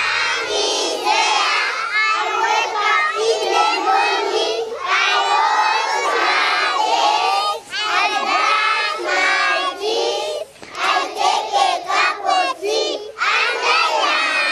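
A large group of young children shouting and singing together, many overlapping voices, loud and nearly continuous with a couple of brief dips in the second half.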